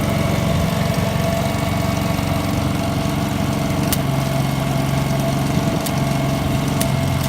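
Denyo My Welper 140GSS gasoline engine welder-generator running steadily; its engine note drops slightly about four seconds in.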